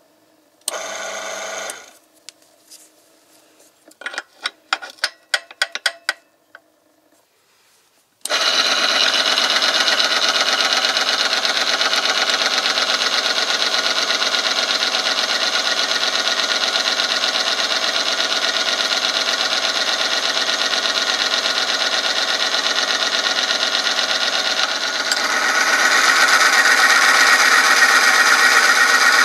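Oil film strength tester's electric motor starting about eight seconds in and running steadily, its spinning ring rubbing under engine oil against the lever-loaded test sample. About 25 seconds in the sound grows louder and harsher as more weight goes on the lever. Before the start, a short buzz about a second in and a quick run of clicks.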